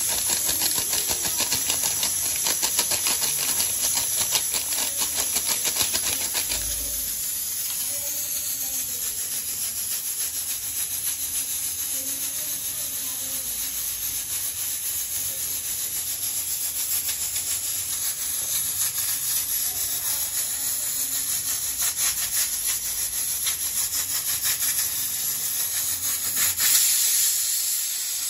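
Spinach puree simmering and sputtering in a steel kadai: a steady hissing crackle, louder for about the first six seconds, then a little softer.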